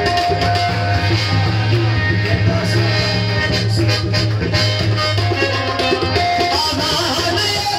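Live qawwali music played loudly: a harmonium and drums in a steady, dense rhythm.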